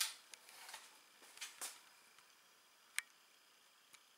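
A few light clicks and handling taps, close by and faint, with one sharper click about three seconds in.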